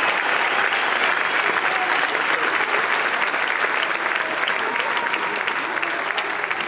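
Large audience applauding: dense, steady clapping with voices mixed in.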